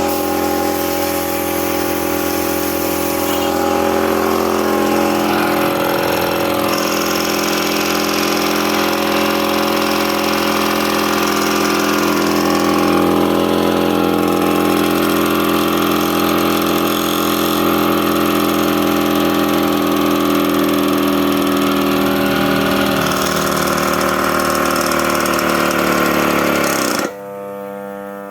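2 hp air compressor running with a loud, steady drone. Near the end its pitch sags and it cuts off suddenly, leaving a steady electrical hum.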